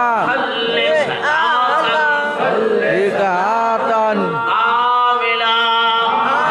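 A man chanting an Islamic religious chant in a melodic, sung style, with long held notes that bend up and down and short breaks between phrases.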